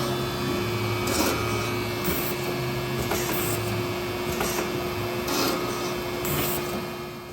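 2005 Gannomat Index 130 CNC drill and dowel insertion machine running: a steady hum with short bursts of hiss about once a second, fading out near the end.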